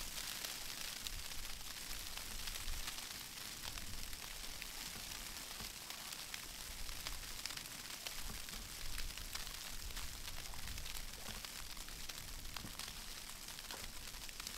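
Falling snow landing lightly on surfaces: a steady soft hiss with many fine ticks, over a faint low rumble.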